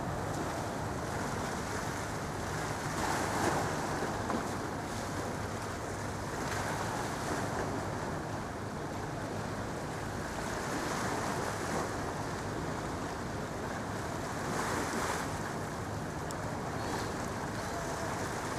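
Steady rushing noise of a moving vehicle with a low, even hum underneath, swelling louder four times.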